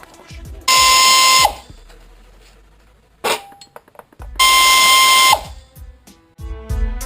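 Two loud electronic beeps, each about a second long and a few seconds apart, with a steady pitched tone over a buzzy hiss and cut off abruptly. Music comes in near the end.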